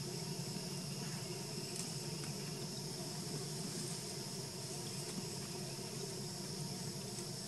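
Steady forest ambience: a continuous high-pitched insect drone with a low steady hum underneath.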